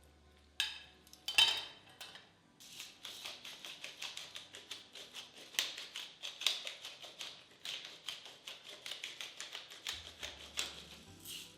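Metal utensil clinking against cookware: two ringing clinks, then a long run of quick clinks and scrapes, several a second, that stops just before the end.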